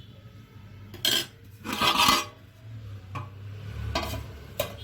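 A spoon scraping through cooked chicken biryani in a cooking pot, twice, the second scrape longer. It then knocks against the pot three times near the end.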